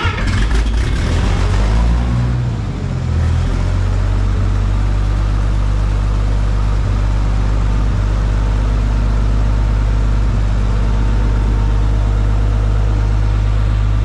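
Minneapolis Moline G900's six-cylinder LP-gas engine running just after starting, its speed rising and falling for the first three seconds or so, then settling to a steady idle. It runs on freshly replaced exhaust manifold gaskets, with the muffler back on.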